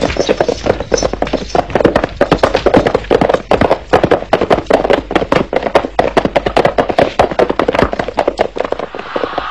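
Horses galloping: a fast, dense clatter of hoofbeats.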